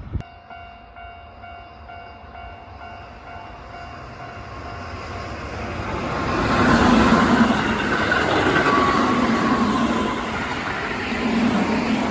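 Level-crossing warning bell ringing in a steady repeating pattern, then a Keihan electric train approaches and runs through the crossing, loudest from about six seconds in. A whining tone falls in pitch as the train passes.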